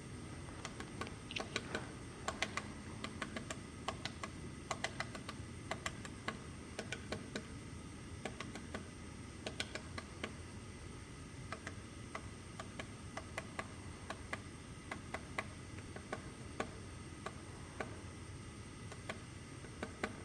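Woodpecker tapping at wood with sharp, irregular single knocks, a few a second, as it pecks for food rather than drumming.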